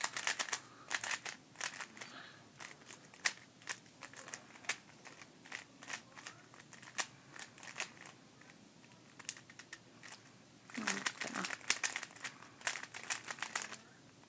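GAN Air Master 3x3 speed cube being turned by hand: light plastic clicks, with quick flurries of turns near the start and again near the end. The layers turn very loosely.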